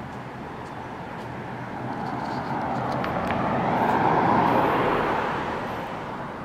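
A pickup truck driving past on the street: its tyre and engine noise swells to a peak about four seconds in, then fades away.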